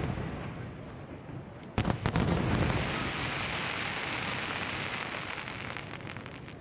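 Aerial fireworks: a quick cluster of shell bursts about two seconds in, followed by a long dense crackling hiss that slowly fades, with scattered sharp pops toward the end.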